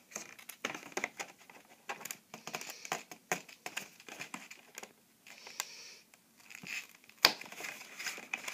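Cardboard Lego advent calendar box being handled and its doors pressed: scattered irregular clicks, taps and rustles of cardboard under fingers, with a sharper click about seven seconds in.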